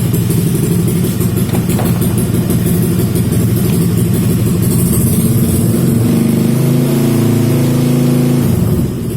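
Honda Vario 150 scooter's single-cylinder engine running through an aftermarket CHA Purbalingga exhaust, idling and then revved up about six seconds in. The higher note is held for a couple of seconds before it falls back near the end.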